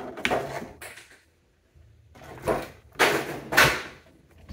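Plastic toy packaging being pried at and handled on a table: a few short, loud scraping and knocking sounds, the loudest two close together near the end.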